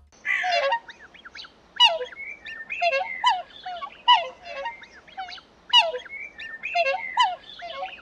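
Swan calls: a string of short, pitched calls, some sliding in pitch, coming a little more often than once a second.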